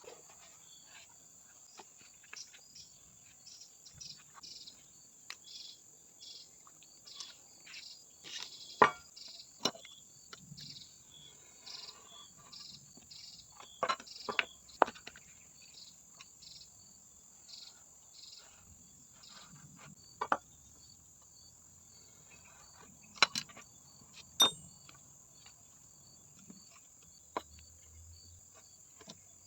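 Insects chirring steadily in the background with a faint regular pulse, broken by a handful of sharp taps and knocks from hand work, a few of them clearly louder than the insects.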